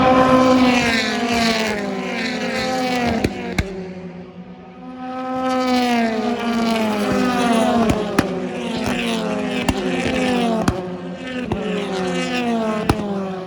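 British Touring Car Championship cars passing at speed in two groups, their engine notes falling in pitch as each goes by. Several sharp cracks are heard among them.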